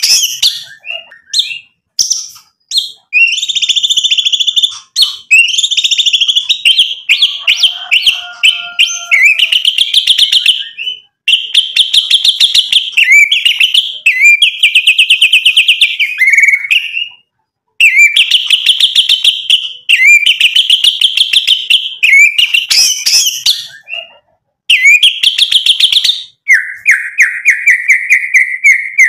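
Male white-rumped shama (murai batu) singing loudly in a caged bird's full song: quick phrases of rapid repeated notes and trills, broken by short pauses. Near the end comes a run of lower repeated notes.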